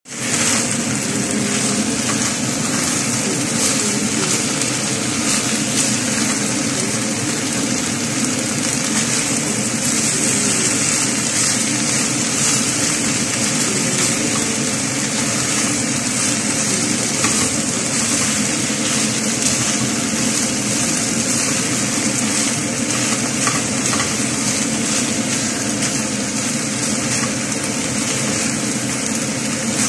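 Chicken and sliced red onions sizzling in a frying pan, a steady frying hiss, over a steady low hum.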